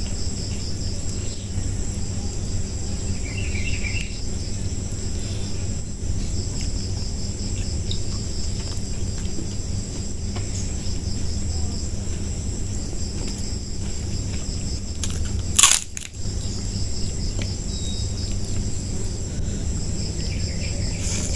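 Crickets chirping steadily in the background over a low, steady hum, with one sharp knock about three-quarters of the way through.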